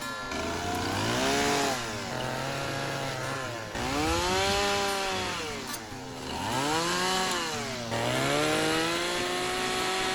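Gas chainsaw carving wood, its engine revving up and dropping back about four times as it cuts.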